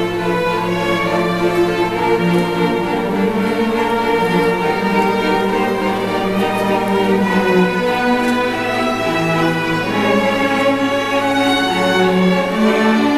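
Student string orchestra playing, violins and cellos bowing held notes together in several parts at a steady volume.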